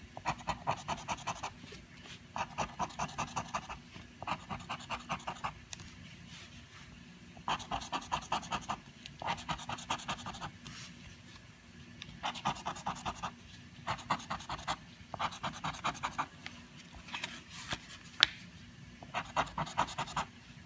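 A small card scraping the coating off a paper scratch-off lottery ticket in rapid back-and-forth strokes, about eight a second, in bursts of around a second with short pauses between. A single sharp click shortly before the end.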